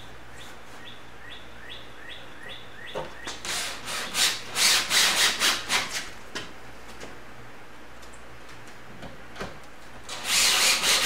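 Cordless drill driving wood screws into a wooden cabinet side, in a run of short loud bursts about three a second, the screws grinding and rubbing into the wood. Another loud burst of drilling comes near the end.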